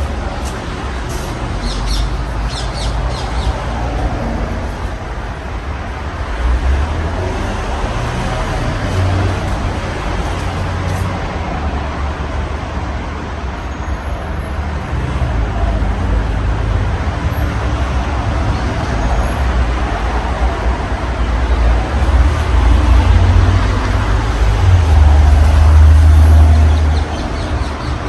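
53-inch Casablanca Halogen Star ceiling fan running with five blades, its moving air buffeting the microphone with a heavy low rumble and a steady rush that swells louder for a few seconds near the end.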